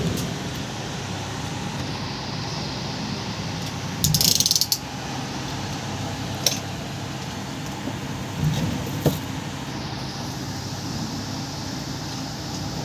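Electric drill bit grinder running with a steady motor hum. About four seconds in there is a loud half-second burst with a hissing top, and there are two sharp clicks later.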